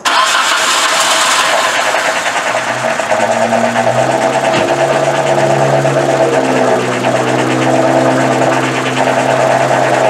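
1995 Nissan Sentra's twin-cam 16-valve four-cylinder engine running rough, firing on only two of its four cylinders; cylinders two and three are not firing. The engine sound comes in abruptly at the start and runs loud and steady.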